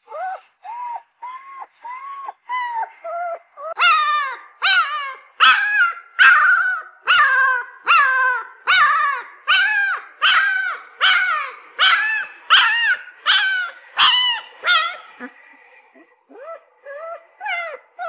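Puppy crying in a run of short whining yelps, each rising then falling in pitch, about one and a half a second. They start softer and lower, grow louder and higher about four seconds in, and fade back to softer cries near the end.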